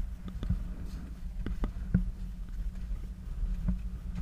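Wind rumbling on an action camera's microphone, with scattered light clicks and knocks.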